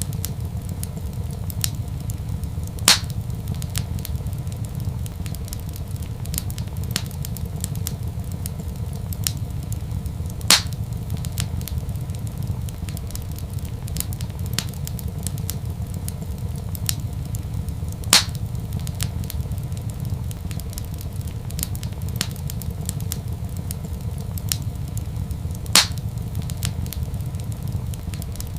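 Wood fire crackling in a fireplace over a steady low rumble, with many light crackles and four louder sharp pops spread evenly through it.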